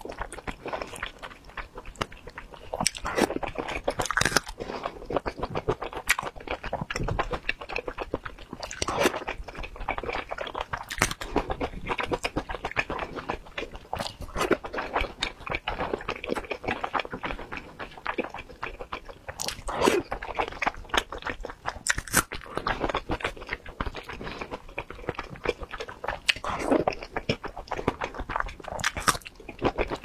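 Close-miked chewing and biting of soup dumplings in chili oil: a continuous, irregular stream of mouth sounds with many short clicks.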